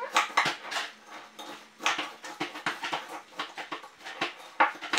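Spoon stirring cornflakes into melted chocolate in a bowl: a run of irregular scrapes, clinks and crunches.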